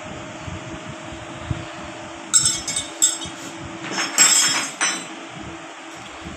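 Small metal pieces clinking and jingling in two short clusters, about two seconds in and again about four seconds in, over a steady fan hum.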